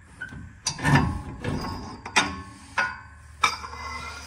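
Sharp metallic knocks and clanks, about half a dozen, some ringing briefly, as a truck's front strut is forced down onto the lower control arm and its studs are worked into their holes.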